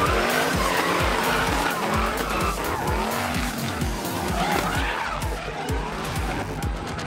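A drift car's engine revving up and down as its tyres squeal through a long slide, with the rotor of a low-flying helicopter and background music mixed in.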